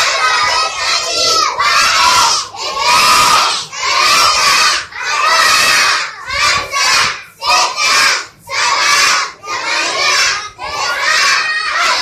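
A group of children shouting in chorus, counting aloud in loud unison shouts, about one a second.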